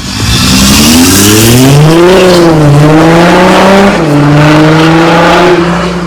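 Audi Q5 3.0 TDI V6 diesel with a 3-inch straight-pipe exhaust, accelerating hard. The engine note climbs in pitch and drops at gear changes about two and a half and four seconds in, then climbs again.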